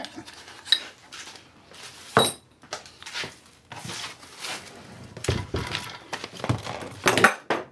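Unboxing handling noises: rustling plastic wrap and paper packing, with light clinks and knocks of small metal parts, including a sharp knock about two seconds in and a louder clatter near the end.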